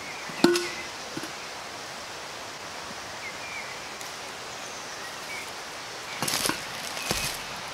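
Steady forest background with a few faint bird chirps. About half a second in, a sharp metallic clink with a short ring as a metal cup knocks while being put into a bag, with a smaller knock just after. Near the end, footsteps rustling through dry leaf litter.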